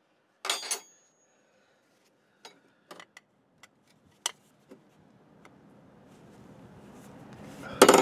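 Metal hand tools clinking and tapping against engine parts: a short clatter about half a second in, then a handful of separate sharp clicks. Faint noise swells over the last few seconds and ends in a louder clatter.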